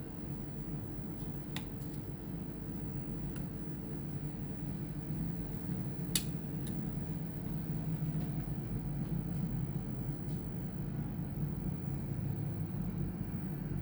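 Steady low background rumble with a few light clicks scattered through it, the sharpest about six seconds in.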